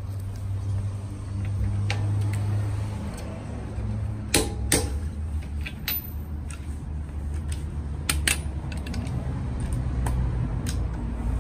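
Click-type torque wrench tightening car lug nuts to 120 ft-lb. It gives several sharp clicks, some in quick pairs, as the nuts reach the set torque, over a steady low hum.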